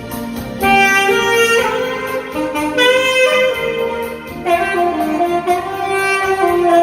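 Saxophone playing a slow melody of held notes over an instrumental accompaniment.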